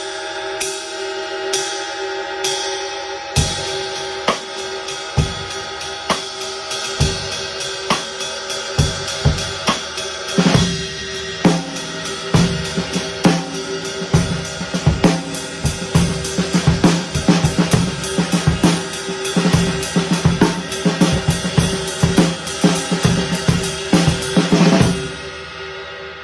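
Amedia ride cymbal struck with a drumstick: a few single ride strokes about a second apart, each left to ring, then a steady drum-kit groove with kick and snare under the ride pattern. The groove stops near the end and the cymbal rings on.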